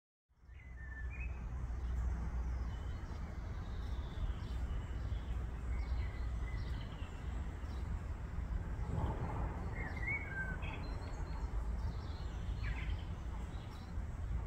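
Outdoor ambience: small birds chirping now and then over a steady low rumble.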